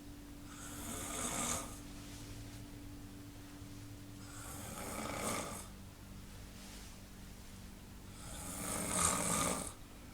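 A sleeping person snoring: three snores about four seconds apart, each swelling louder and then cutting off sharply.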